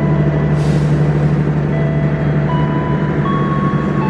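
Passenger train rolling slowly along the platform: a steady low drone with thin whining tones held over it that shift pitch in steps, and a short hiss about half a second in.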